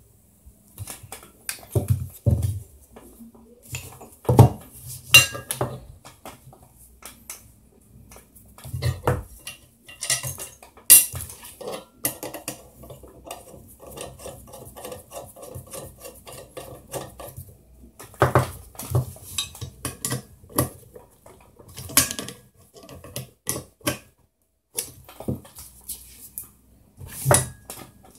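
Metal parts of a TV wall mount clinking and knocking irregularly as they are handled and fitted together, with a run of quick, even rattling in the middle.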